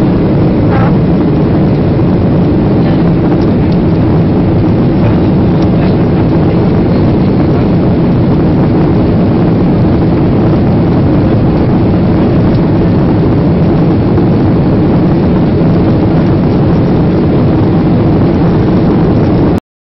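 Steady cabin noise inside a Boeing 737-800 in flight: the hum of its CFM56 engines blended with the rush of air past the fuselage. It cuts off suddenly near the end.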